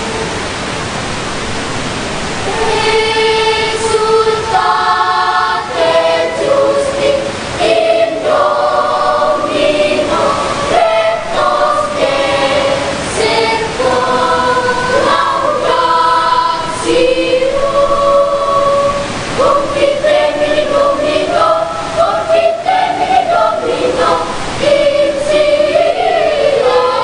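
Children's choir singing in several parts, opening on a held note and then moving into flowing melodic lines.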